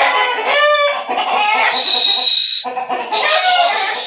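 Chickens kept under cane baskets calling in a string of loud calls, with a rooster crowing and clucking among them.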